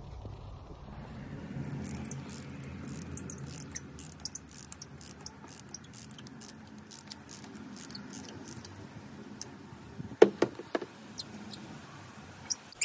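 Socket ratchet on an extension clicking in quick, uneven runs as a spark plug is unscrewed from the Ford Focus 1.0 EcoBoost engine, with a few loud sharp knocks near the end.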